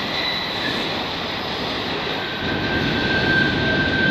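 Freight train's autorack cars rolling past: a steady rumble of steel wheels on rail with a thin, high wheel squeal over it. The squeal drops to a lower, steadier pitch about two seconds in.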